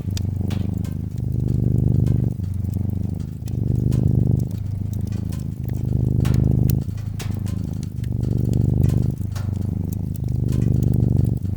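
Domestic cat purring, the low purr swelling and easing in a regular cycle with each breath about every two seconds. A wood fire crackles over it with frequent small snaps and pops.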